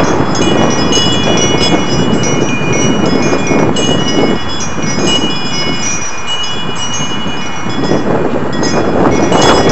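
Metal-tube butterfly wind chime ringing as its tubes knock together, several high bell-like notes starting one after another and ringing on, over a loud, low rushing noise.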